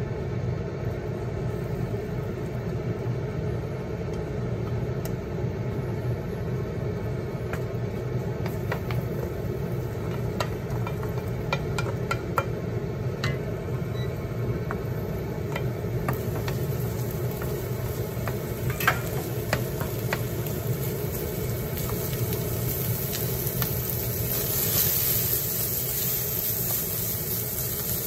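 Chopped Japanese leek frying in oil in an iron wok, a wooden spatula clicking and scraping against the pan, over a steady low hum. The sizzle swells louder a few seconds before the end.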